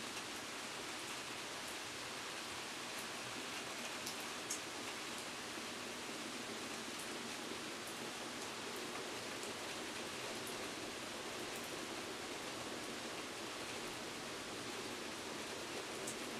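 Steady rain falling, an even hiss with a few sharp drip ticks scattered through it.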